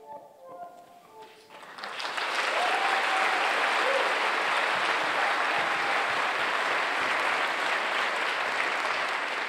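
The last soft notes of the dance music end, and about a second and a half in a theatre audience starts applauding, a dense, even clapping that holds at full strength.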